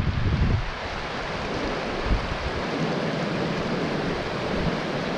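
Small mountain stream rushing steadily over riffles and a low cascade. Wind buffets the microphone in the first half-second.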